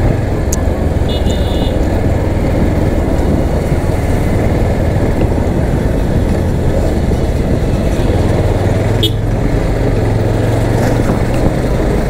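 Motorcycle running at moderate riding speed, a steady engine hum under heavy wind rush over the handlebar-mounted microphone. A brief high beep sounds about a second in.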